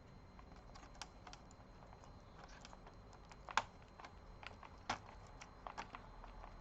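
Scattered light clicks and taps of a laptop being taken apart by hand, its small parts and screws handled, with the sharpest click about three and a half seconds in and another near five seconds.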